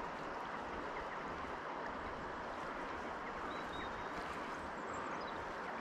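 River water running over a shallow pebble bed: a steady rushing.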